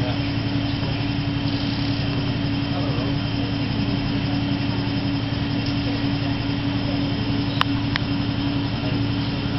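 Steady low hum and hiss of machinery in an intensive care room: the bedside life-support equipment and ventilation. Two brief clicks come near the end.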